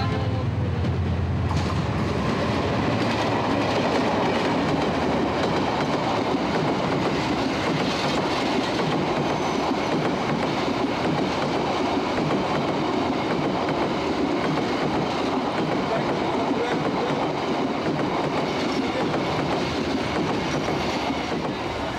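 A train running on rails: a steady, even noise of wheels and wagons. Background music gives way to it about a second and a half in.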